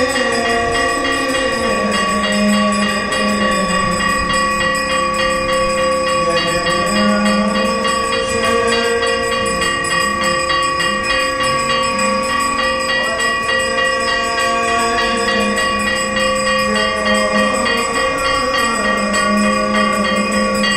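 Temple bells ringing rapidly and without a break during an aarti, with a steady ringing tone held over the rapid strokes. A lower wavering tone comes and goes alongside them.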